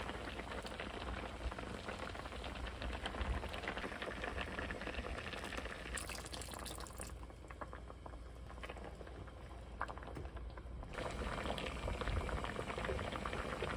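Peach slices in sugar syrup boiling in a pan, the syrup bubbling and crackling steadily. About six seconds in, a thin stream of liquid is poured into the pan for about a second.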